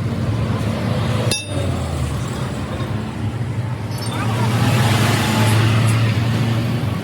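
A steady low engine-like hum with a few short, light metallic clinks, one about a second in and another about four seconds in.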